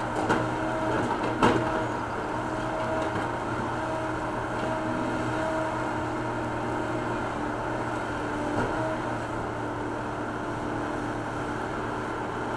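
John Deere backhoe's diesel engine running steadily under load as its hydraulic boom digs and lifts broken sidewalk concrete. Two knocks come in the first second and a half, the second louder.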